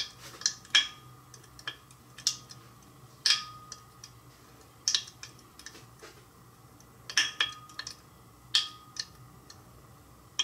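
Manganese heptoxide blobs exploding in ethanol inside a glass beaker: small, sharp, irregular pops, about one or two a second, a few followed by a brief faint ringing tone.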